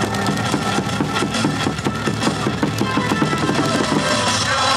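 Loud cheer music played over stadium loudspeakers, with a steady driving beat.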